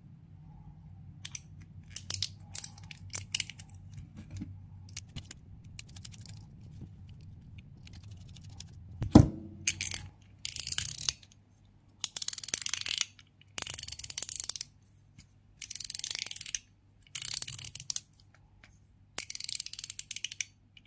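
Metal EDC slider fidget being handled and slid: small clicks and a sharp knock about halfway through as the parts go together, then about six rasping slides of roughly a second each, metal plates moving over the spring-loaded bead detents with a ratchet-like sound.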